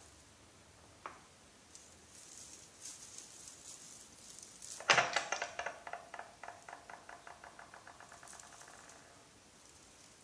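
A small hard object lands with a sharp clack, then rattles and wobbles in quick, even ticks with a faint ring for about four seconds before settling, like a dish, lid or toy spinning down on a hard surface.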